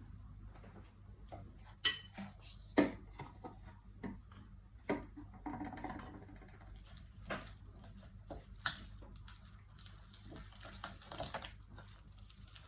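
A spoon clinking and scraping against a bowl as a spice marinade is stirred, with a few sharp clinks, the loudest one ringing briefly about two seconds in.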